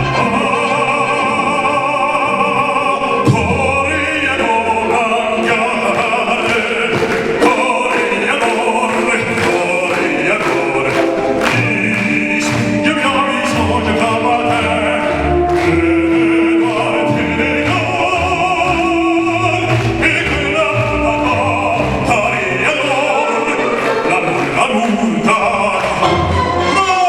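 Operatic singing with instrumental accompaniment: a classical voice sung with wide vibrato over sustained bass and chords.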